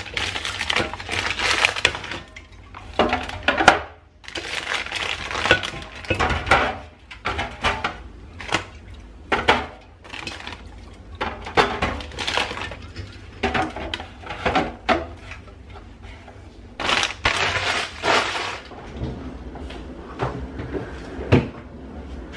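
Packaging crinkling and crackling, with irregular knocks and clatter of groceries being handled and put away.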